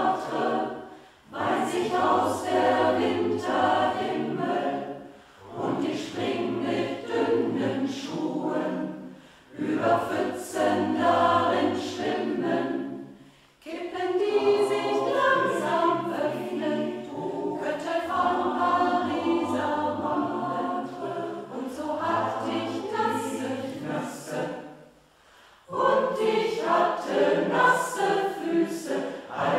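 A choir singing a slow song in phrases a few seconds long, with a short break between phrases.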